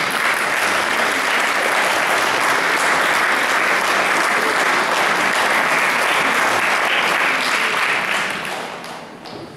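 Audience applauding, steady clapping that dies away near the end.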